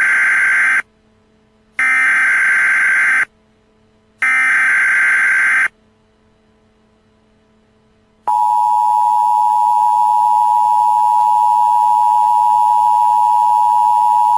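Emergency Alert System broadcast tones: three bursts of SAME digital header data, each about a second and a half long with a short pause between, then about eight seconds in the steady two-tone EAS attention signal starts and holds, announcing that an emergency message follows.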